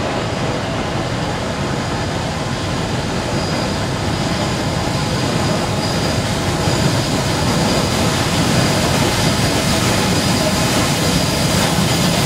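Steady rumble of trains in a station with a faint steady high hiss, growing a little louder over the last few seconds as an LMS Stanier 8F steam locomotive draws slowly towards the platform.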